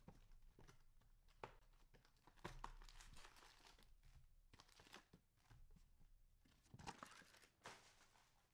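Faint tearing and crinkling of plastic wrapping, in irregular crackles and short rustling stretches: cello-wrapped trading card packs being opened.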